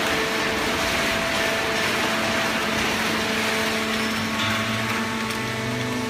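Automatic horizontal hydraulic baling press running: a steady machine hum and whine over broad noise, with a deeper hum coming in about four and a half seconds in.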